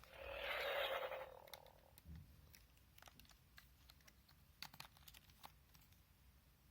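A toy's sound effect: a short hissing burst lasting about a second and a half, followed by scattered light clicks.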